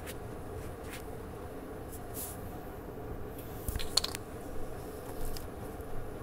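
A phone being handled close to its microphone: a cluster of sharp clicks and knocks a little past the middle and a couple more near the end, over a steady low room hum.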